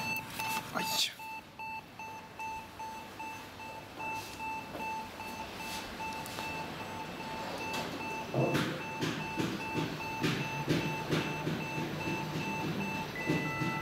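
An electronic beeper repeating short two-tone beeps, about three a second, without a break. From about eight seconds in, a low rumble and rattling join it.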